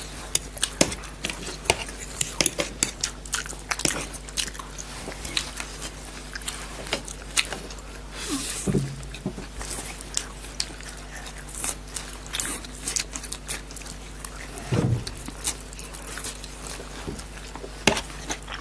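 Several people eating chowmein noodles close to the microphone: chewing and slurping, with frequent sharp clicks of forks against plates.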